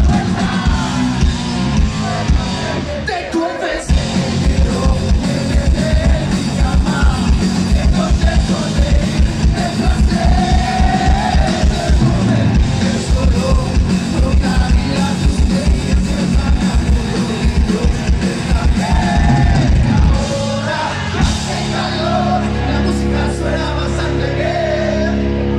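Live rock band playing: electric guitar, bass guitar and drum kit driving a fast, steady kick-drum beat, with a voice singing over it. The drums stop about twenty seconds in and the band holds one long ringing chord.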